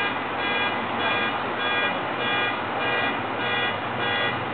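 A high, multi-tone electronic beeping repeating about every three-quarters of a second over a steady background noise.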